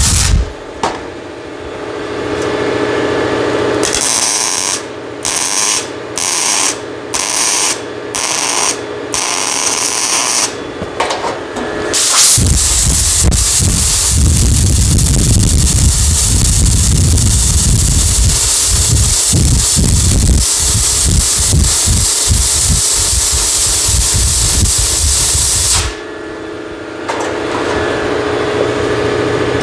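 MIG welder laying a string of short stitch welds on sheet steel, each a brief crackling burst with short gaps between. About twelve seconds in, a long steady blast of compressed air follows, played onto the hot weld to cool it and shrink the metal back into place.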